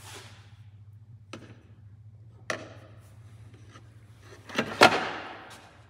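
Metal knocks and clunks as a cylinder liner is handled and set into a bore of a Detroit Diesel 8V92TA block: two single knocks, then a louder cluster near the end that rings on briefly. A steady low hum runs underneath.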